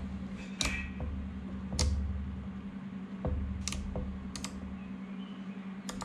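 Toggle switches on a RadioMaster TX16S radio transmitter being flipped, about five sharp separate clicks, to clear its start-up switch warning. A steady low hum runs underneath.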